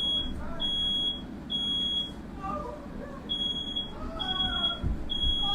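Smoke alarm sounding its high-pitched three-beep pattern: three beeps, a pause, then three more. It is set off by smoke from a firework lit in a room.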